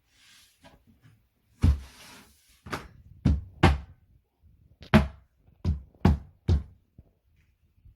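Knocks and thuds on flat-pack wooden bedside-table parts being fitted together: about eight sharp knocks, irregularly spaced, with a brief scrape about two seconds in.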